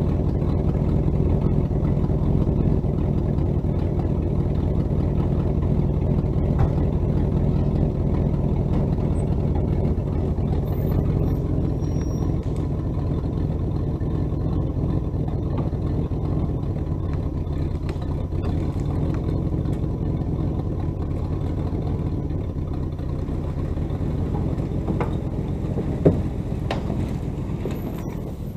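Engine of a 1967 Mercury pickup running steadily as the truck pulls forward, dragging a roped load of brush out of its box; it grows a little fainter toward the end, and there is one sharp knock near the end.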